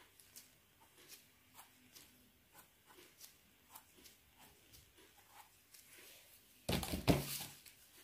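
Faint crackling and rustling, with many small clicks, then a loud, short rustling burst near the end.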